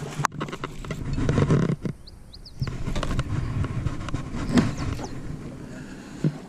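Low, gusty rumbling noise with a sharp click just after the start. In a quieter moment about two seconds in, a few short high bird chirps.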